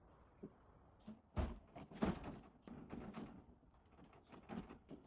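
Faint, irregular knocks and rustling, like objects being handled.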